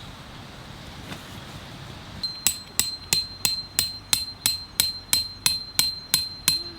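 Hammer driving a metal tent peg: a regular run of sharp metallic strikes, about three a second, starting a little after two seconds in, with a high ringing note sounding between the blows.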